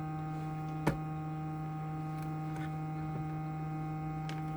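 Steady electrical mains hum, with one sharp click about a second in and a few faint ticks later.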